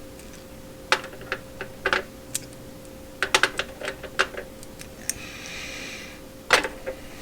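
Small metal bolts clicking and clinking as they are handled and set down: a dozen or so light, irregular taps, with a short rustle about five seconds in. A faint steady hum runs underneath.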